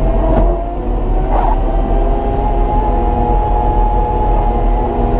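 Caterpillar 926M wheel loader's engine running steadily with a humming drone, rising slightly in pitch about a second and a half in.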